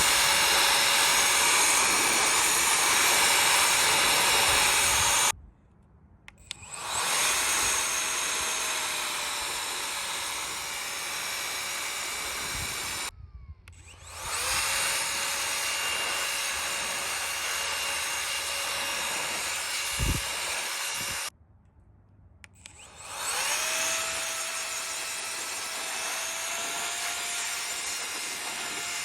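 Handheld electric air duster blower running with a steady high whine; it is switched off three times and each time spins back up with a rising whine.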